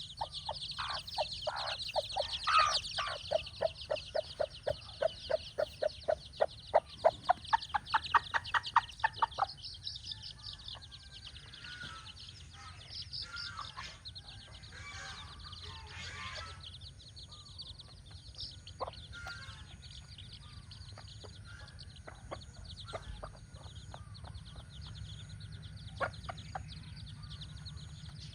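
Mother hen clucking in a rapid, even series, about four or five clucks a second, with her chicks peeping high above; the clucking stops about ten seconds in, and scattered chick peeps carry on.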